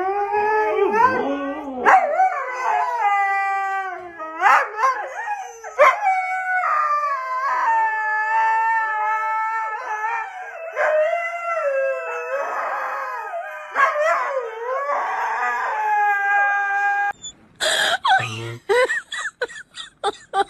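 Huskies howling together: long drawn-out howls that slide up and down in pitch, with voices overlapping at times. Near the end the sound cuts to a husky puppy's short, quick cries.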